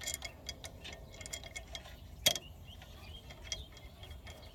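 Ratchet wrench clicking unevenly as the brake caliper bolt is run back in and tightened, with one louder metallic clack a little over two seconds in.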